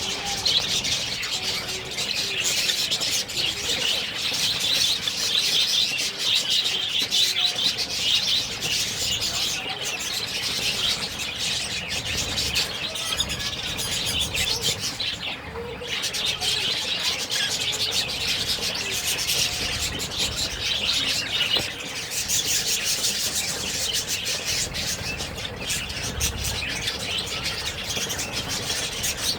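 Budgerigars chirping and chattering in a fast, dense, high-pitched stream, with a brief lull about halfway through.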